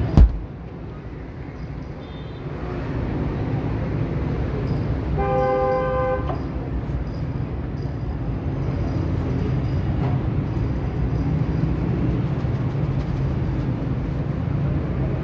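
Steady low rumble of street traffic, with a vehicle horn honking once for about a second, about five seconds in. A sharp thump sounds right at the start.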